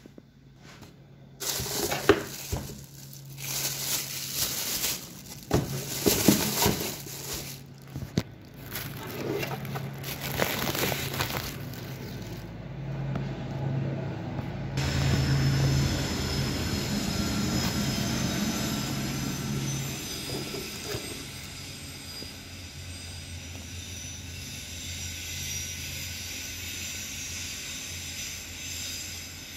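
Clear plastic packaging crinkling and rustling as a cordless drill is unwrapped and handled in its cardboard box, with irregular knocks and crackles. From about halfway a steady even hum with faint high tones takes over.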